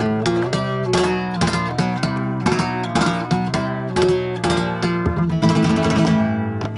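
Flamenco played on an acoustic guitar: quick strummed chords mixed with plucked melody notes. Near the end a chord is left ringing before the playing picks up again.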